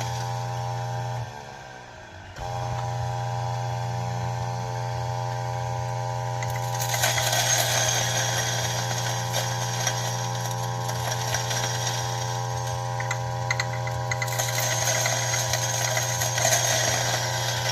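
Electric coffee burr grinder motor running with a steady hum; about a second in it winds down with falling pitch and starts again a second later. Coffee beans fed in slowly crackle through the burrs, loudest from about seven seconds in and again from about fourteen seconds.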